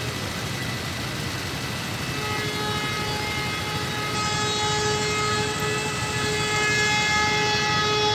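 Train horn sounding one long, steady note starting about two seconds in, over the low rumble of idling motorbikes and traffic waiting at the crossing.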